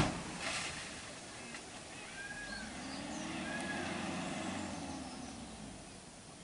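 A sharp knock at the start, then a motor vehicle engine swelling for a few seconds and fading away, with two short bird chirps over it.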